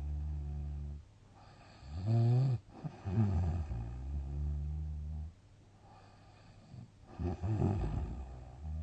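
A sleeping person snoring: three low, steady droning snores, with a louder, rougher breath whose pitch wavers about two seconds in and another noisy breath a little before the end.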